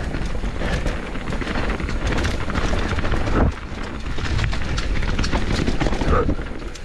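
Canyon Torque enduro mountain bike running fast down a dirt singletrack: a steady rumble of tyres and wind buffeting the microphone, with many quick rattles and knocks from the bike over the bumps.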